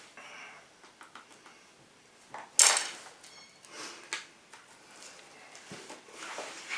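Scattered scraping, rustling and knocks from handling a cattail-and-poplar hand drill fire set after drilling has stopped, as an ember is being formed. The loudest is a sharp rasping burst about two and a half seconds in.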